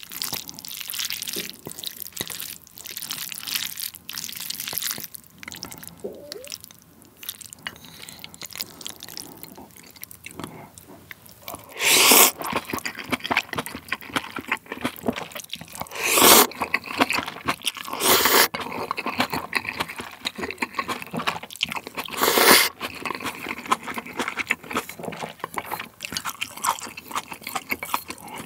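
Close-miked eating of instant ramen with tuna and mayonnaise: wet chewing and mouth clicks, with four loud noodle slurps in the second half.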